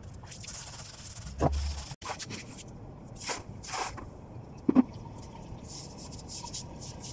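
Knocks and rustles of a phone camera being handled and set down, with a low thump about a second and a half in and a louder double knock near five seconds. From about six seconds in, the rhythmic scratchy swish of a long-handled broom sweeping a rooftop floor.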